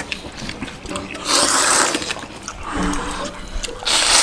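Hele noodles slurped from a bowl of spicy broth: three separate hissing slurps, each about half a second long, with short pauses between them.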